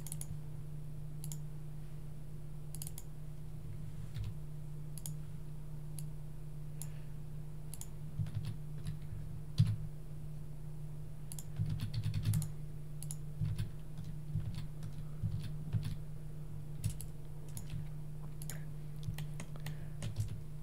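Computer keyboard keys and mouse buttons clicking irregularly, in bursts through the middle part, over a steady low hum.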